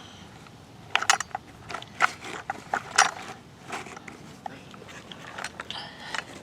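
Toy digging tools scraping and clicking in sand: a run of sharp clicks and scrapes, the loudest about one, two and three seconds in.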